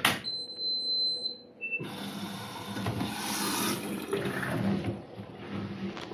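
Washer-dryer starting a Synthetics Cupboard Dry program: a click as the Start button is pressed, a high beep lasting about a second and a short lower beep, then water rushing in through the detergent dispenser drawer.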